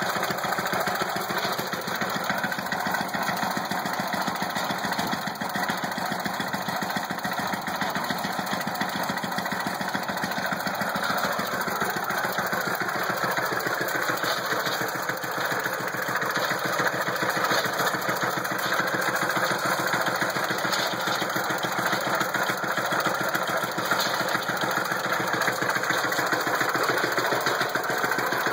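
International Harvester LB-series 3–5 hp single-cylinder engine running steadily while powering a Lilliston hay baler, its firing beats coming rapidly and evenly. Its note shifts slightly about twelve seconds in.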